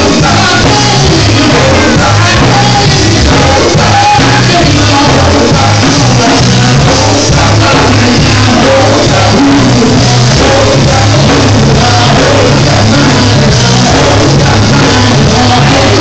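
Gospel quartet performing live with a band: a lead singer shouting out the lines over background vocals, with a steady bass line underneath. Very loud throughout.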